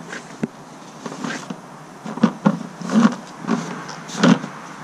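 Reinforced suction hose being pushed and worked into the narrow neck of a plastic jerry can: a series of short, irregular scrapes and rubs of hose against plastic, a tight fit.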